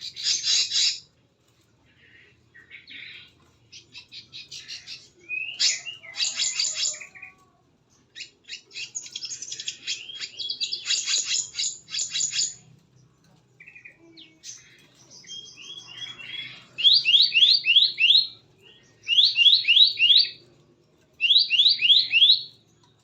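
Small birds calling: quick runs of high chirps and trills, ending with three loud bursts of rapid repeated sweeping notes.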